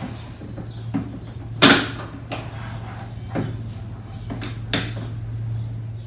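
Red jumper-cable clamp being handled and clamped onto a car battery's positive terminal: a string of clicks and knocks, the loudest about a second and a half in, over a steady low hum.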